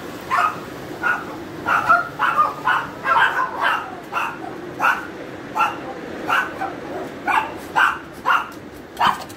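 A dog barking over and over in short barks, about two a second.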